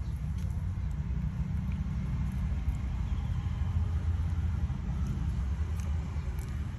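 A steady low rumble throughout, with a few faint ticks.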